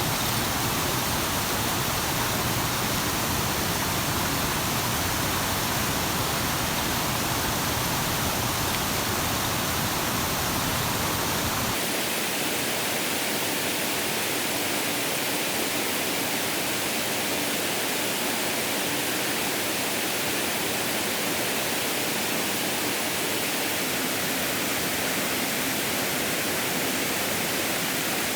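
Steady rushing water noise, an even hiss; about twelve seconds in, the low rumble underneath cuts out abruptly and the hiss carries on.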